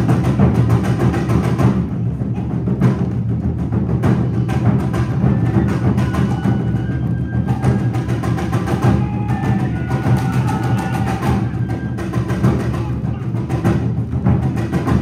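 Live Awa odori music: taiko drums and other percussion beating a steady, driving rhythm with many sharp strikes, and a higher melody line entering around the middle and fading out again.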